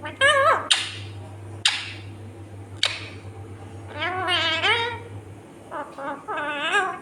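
Indian ringneck parakeet vocalizing: a few wavering, voice-like calls, broken by three short sharp squawks in the first three seconds, over a steady low hum.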